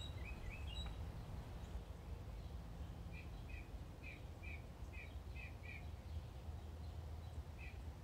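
Faint outdoor ambience with a small bird chirping: a run of about seven short, evenly spaced chirps midway, and a few scattered chirps before and after, over a steady low rumble.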